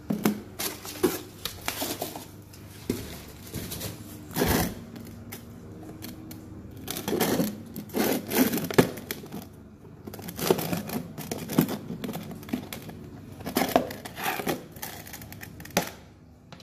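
Packing material and a plastic tub being handled during unpacking: irregular rustling and crinkling in bursts, with a few sharp knocks.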